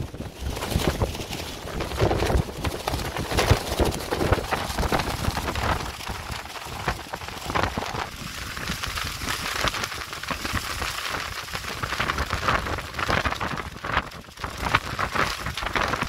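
Gusty wind buffeting the microphone while the clear plastic sheeting of a tent flaps and crackles without pause. The low wind rumble drops away about halfway through, leaving the crackling plastic.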